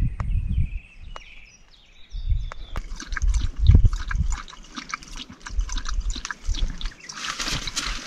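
Jindo dog lapping water from a handheld portable water bottle: a quick, wet run of licking clicks starting about three seconds in.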